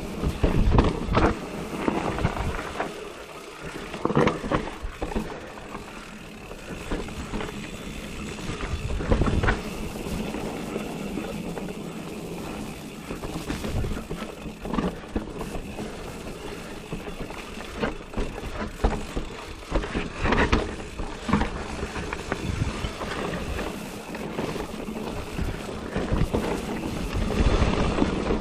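Riding noise from a Giant Reign E+ electric mountain bike on a dirt trail: a steady rush of tyres and wind on the microphone, broken by irregular knocks and rattles from the bike going over rough ground.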